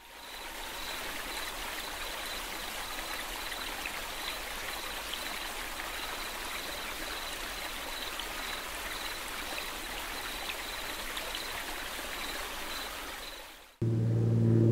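Flowing stream water, a steady rushing hiss that fades in at the start and fades out near the end, with a faint high chirp repeating throughout. Music starts suddenly just before the end.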